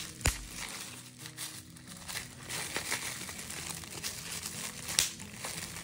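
Clear plastic bubble wrap crinkling and rustling as it is unwrapped by hand, with two sharper clicks, one just after the start and one near the end.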